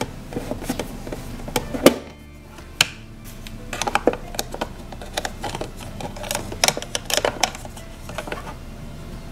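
Sharp plastic clicks and taps from a toy oven's door being opened and a plastic spatula scraping and knocking on the plastic oven tray, over steady background music.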